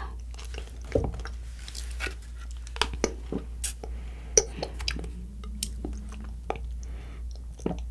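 Close-up mouth sounds: scattered wet clicks and chewing while coconut water is sipped through a straw straight from a whole coconut, with a soft sucking hiss about halfway through.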